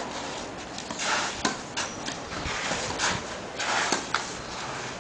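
Tennis rally on a clay court: a tennis ball struck by rackets several times, with sharp hits, and tennis shoes scuffing and sliding on the clay in short hissy bursts, one as the player lunges about four seconds in.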